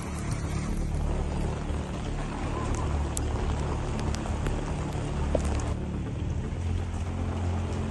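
A vehicle engine running with a steady low rumble over a noisy hiss.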